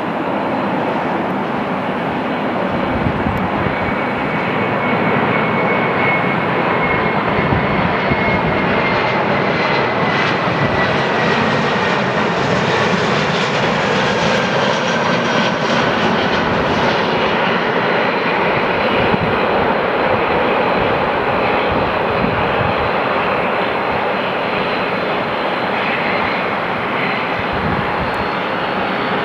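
Airbus A320-212 jet engines (CFM56) on landing approach: a steady loud rushing jet noise with a thin whine that slowly falls in pitch as the airliner passes close by, loudest around the middle.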